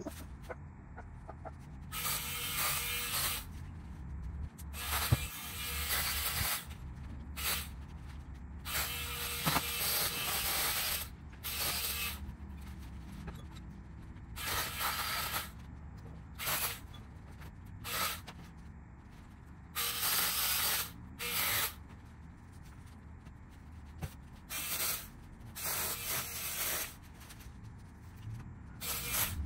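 Battery-powered 4-inch mini chainsaw running in over a dozen short bursts, most under two seconds, with pauses between, as it cuts lilac branches. Its chain seems a little loose.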